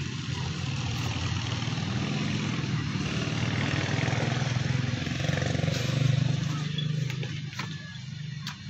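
A motor engine running, growing louder and then fading after about six seconds, like a vehicle passing.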